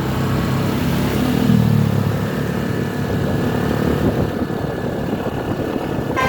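Road vehicle engine running, swelling about a second and a half in and then fading into an even road rumble. A multi-note horn starts right at the end.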